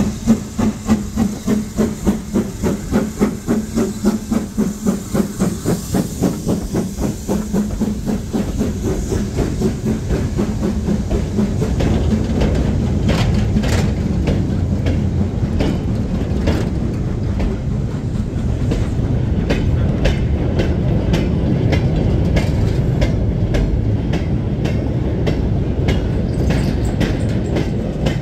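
BR Standard 9F two-cylinder 2-10-0 steam locomotive passing at speed, its exhaust beating in a steady rhythm. After about twelve seconds the goods vans rumble past close by, their wheels clattering over the rail joints in a fast run of clicks.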